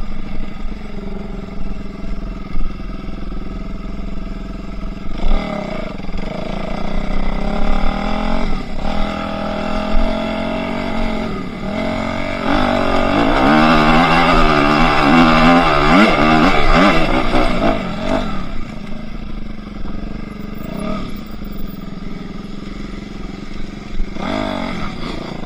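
Enduro motorcycle engine being ridden, revving up and easing off again and again, with its loudest, longest run of high revs a little past the middle.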